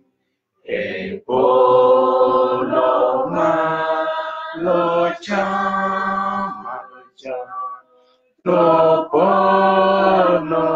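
A man singing a Luo hymn unaccompanied, in long held notes, with short pauses for breath between phrases.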